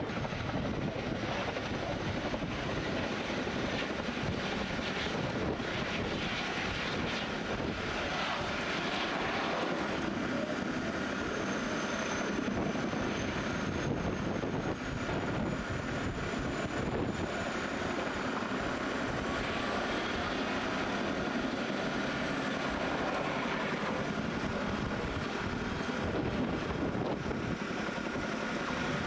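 Boeing Chinook HC2 twin-rotor helicopter flying a display, its tandem rotors and twin turboshaft engines making a steady, continuous aircraft noise, with a thin high whine above it through the middle.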